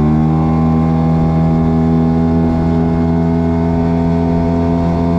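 Mariner 10-horsepower outboard motor pushing a small skiff along under way. Its pitch steps up a notch at the start, then holds steady.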